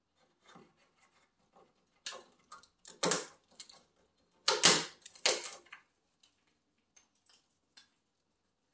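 Blue-and-gold macaw eating from a stainless steel bowl: irregular clicks and knocks of its beak and food against the metal, with louder clusters of clatter about two, three and five seconds in.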